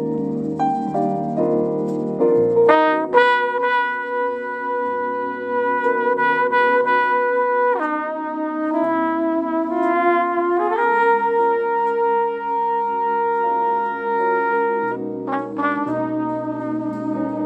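Jazz trumpet playing a slow ballad melody over a backing accompaniment. It holds long notes, slides down into a lower note about eight seconds in and back up about three seconds later, with quick upward runs near the start and near the end.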